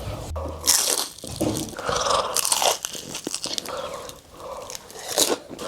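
Close-miked eating: irregular bites and chewing of crunchy food, with a few louder crunches.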